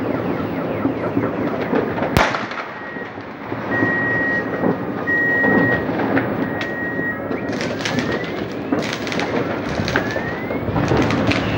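New Year's fireworks going off all around: dense crackling and popping, a single sharp bang about two seconds in, and whistling rockets rising in pitch in the second half. A steady high tone runs through the middle.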